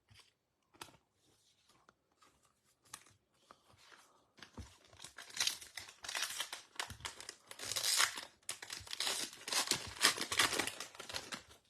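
A foil trading card pack wrapper being torn open and crinkled: a few light clicks of handling, then about seven seconds of tearing and crackling.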